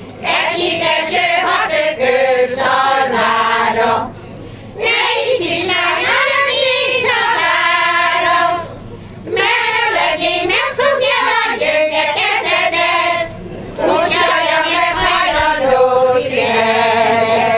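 Women's folk choir singing a Hungarian folk song, in sung phrases a few seconds long with brief pauses for breath between them.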